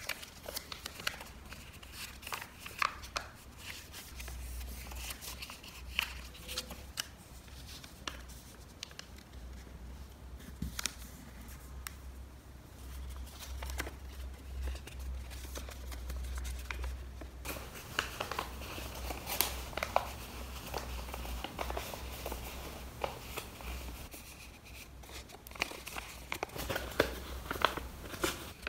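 Origami paper being folded and creased by hand: soft rustling and crinkling with irregular crisp crackles as folds are pressed.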